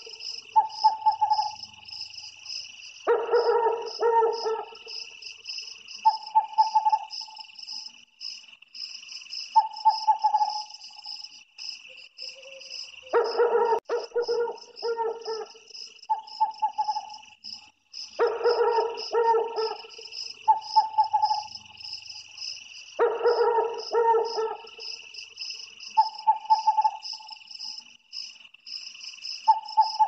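Owl calling over and over: clusters of several quick pitched notes, then single shorter notes, repeating every few seconds. Insects chirr steadily underneath throughout.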